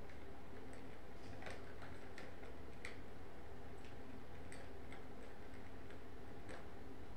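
Light, irregular plastic clicks and taps as kittens paw at a three-tier plastic ball-track toy, over a steady low hum.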